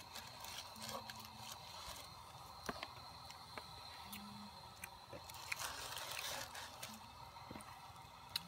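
Faint eating sounds: small clicks and short scrapes of a utensil on a plate, with chewing.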